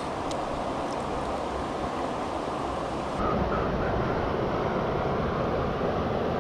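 Steady rushing of river water; about three seconds in it shifts to a deeper, fuller rush with less hiss.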